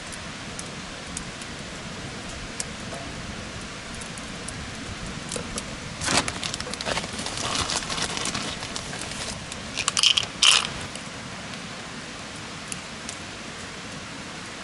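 Campfire crackling with scattered small pops over a steady hiss, with a few seconds of clattering and rustling of camp gear being handled about six seconds in, the sharpest clinks near ten seconds.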